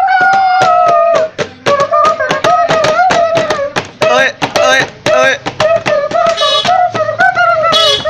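Mouth music made through cupped hands: a single wavering tune, with short breaks, over a quick run of beatbox-style clicks and beats.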